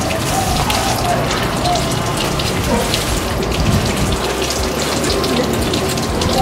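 Tap water running and splashing into a basin as children wash their hands, steady throughout.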